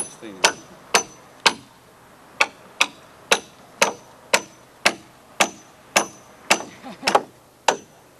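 Hammer striking steadily, about two blows a second, each blow ringing briefly: nailing work on the timber roof framing of a house under construction.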